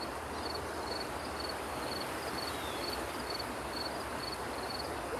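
Crickets chirping outdoors: short, high, pulsed chirps repeating about twice a second over a steady background hiss.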